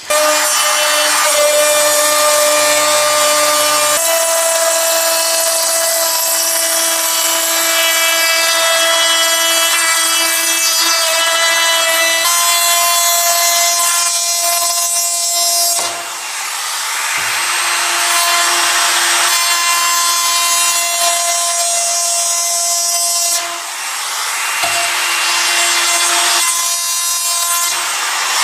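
Makita compact trim router running and cutting into a wooden board, its motor whine steady but stepping in pitch a few times over the noisy hiss of the bit chewing through wood, with two brief dips in level.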